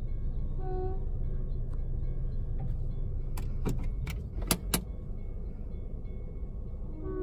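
Steady low rumble heard from inside a stopped car's cabin. A short faint tone sounds just under a second in, and a quick run of sharp clicks comes around the middle.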